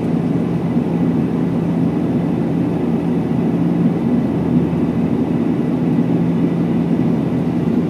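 Steady cabin drone of a high-wing turboprop airliner in cruise: constant engine and propeller hum with a low tone over rushing air.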